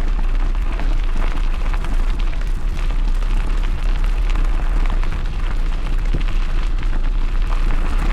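Steady wind rumble on the microphone with rustling and small crackles from a bike rolling along a trail behind two running sled dogs.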